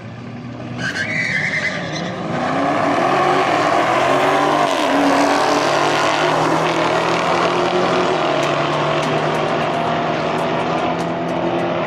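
Two drag-racing cars, one of them a Ford Mustang, launching off the line and accelerating hard down the quarter-mile, engines rising in pitch as they pull away. A short tire squeal comes at the launch about a second in.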